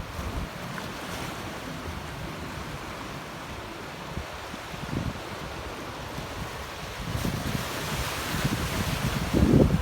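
Ocean surf breaking on a beach, with strong wind buffeting the microphone in low gusts. The wash of the waves swells louder in the last few seconds, ending in a heavy gust.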